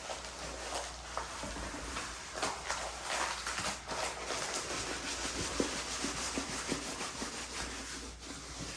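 A rolled diamond painting canvas rustling and crinkling as it is handled and unrolled, with small sharp crackles.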